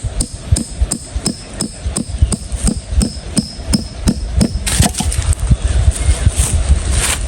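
Steady hammering, about three blows a second, with a faint metallic ring on each strike, as when a nail is driven. The blows stop about four and a half seconds in and give way to rougher handling and scraping noise.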